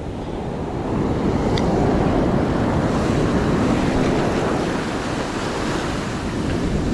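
Ocean surf washing against the shore, mixed with wind buffeting the microphone; the rush swells about a second in and stays up.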